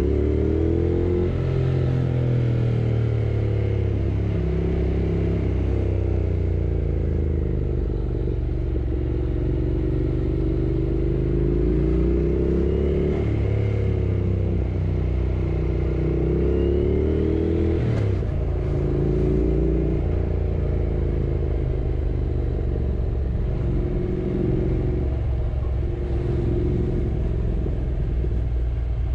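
Yamaha R6 sport bike's inline-four engine running while riding, its pitch rising and falling as the throttle opens and closes. A single sharp click comes about 18 seconds in.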